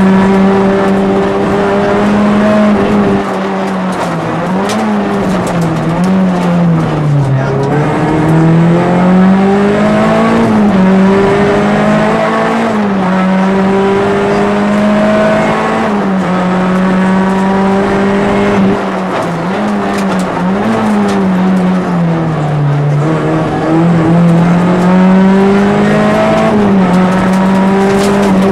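Peugeot 206 RC rally car's 2.0-litre four-cylinder engine heard from inside the cabin, driven hard on a stage. It revs up and drops back over and over, its pitch rising and falling, with several sudden drops.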